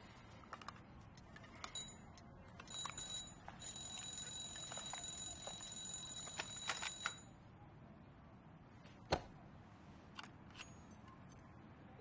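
A high, trilling ring that lasts about four seconds, set among small clicks and handling sounds, with one sharp click later on.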